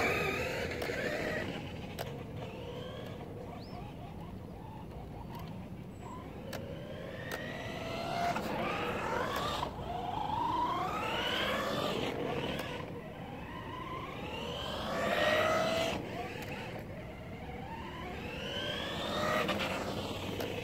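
Radio-controlled cars' motors whining in a run of rising sweeps, about five surges, as the cars speed up and pass. The loudest surge comes about three-quarters of the way through.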